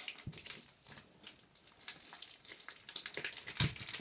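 Handling sounds of raw bacon being put into a frying pan: light rustling and scattered clicks, with a soft knock about a third of a second in and a louder knock a little before the end.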